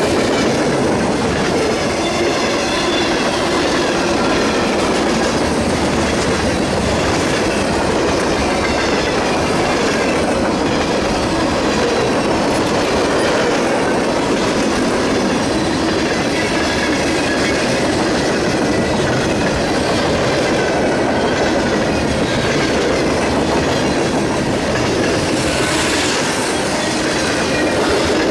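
Freight cars of a Norfolk Southern mixed freight train passing close at speed: a steady, loud noise of steel wheels running on the rails, with a faint wavering high-pitched ringing above it.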